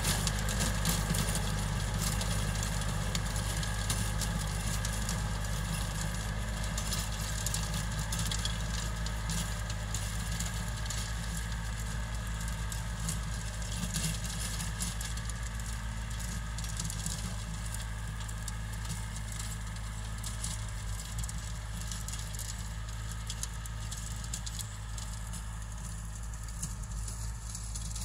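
Tractor's diesel engine running steadily as it pulls a rear-mounted rotary tiller through soil, with a crackling hiss over the engine note. The sound slowly fades as the tractor moves off.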